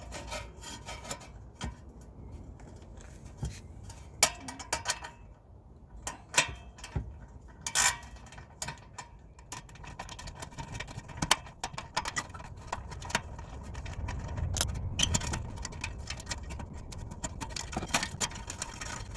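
Irregular metal clicks, knocks and scraping of a 10 mm wrench and the exhaust tip being handled while the tip's clamp screws are worked on.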